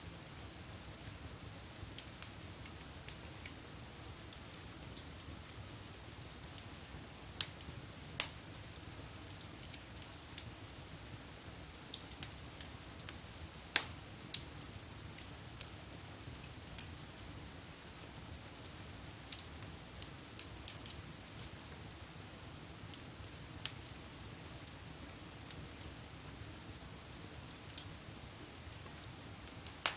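Wood fire burning in a fireplace, crackling with irregular sharp pops over a low steady rumble; the loudest pop comes about halfway through.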